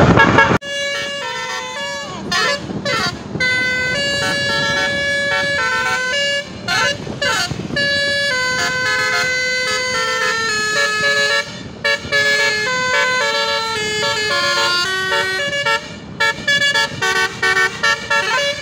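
Bus 'telolet basuri' musical horn playing a tune: a long run of held horn notes stepping from pitch to pitch, with a few sliding siren-like sweeps in the first half.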